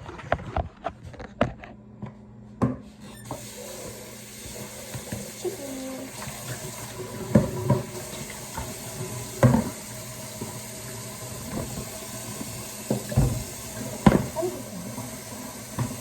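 Water running from a kitchen tap into the sink, turned on about three seconds in and running steadily, with several knocks and clunks from handling items at the sink.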